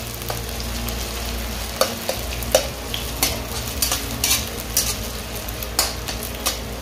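Diced chicken luncheon meat sizzling as it fries in hot oil in a pan, with irregular clicks and scrapes of a spatula stirring it against the pan.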